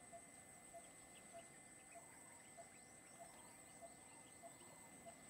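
Faint wildlife ambience: a bird repeats one short note evenly, about every two-thirds of a second, with faint higher chirps and a steady high-pitched whine behind it.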